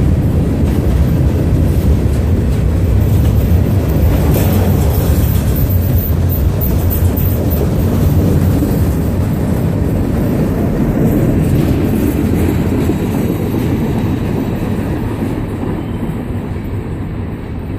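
A train passing with a steady rail rumble, slowly fading near the end as it moves away.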